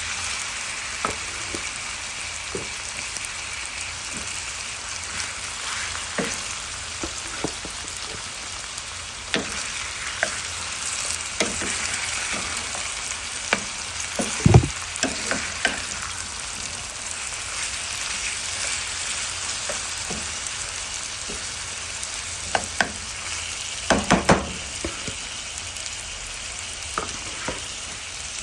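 Seasoned chicken and potatoes sizzling in a frying skillet, with clicks and knocks from a utensil as the pan is stirred and the chicken added. There is one louder knock about halfway and a quick run of clatters a little before the end.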